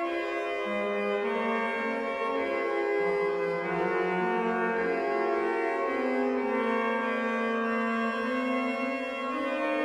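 Sampled pipe organ, the Müller organ of the Grote Kerk in Leeuwarden set to mean-tone tuning, playing several held notes at once in slow, interweaving lines of an early Baroque prelude.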